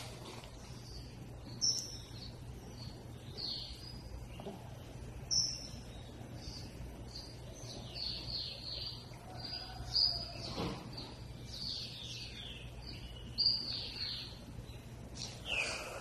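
Small birds chirping, many short high calls and quick falling notes following one another, over a low steady hum.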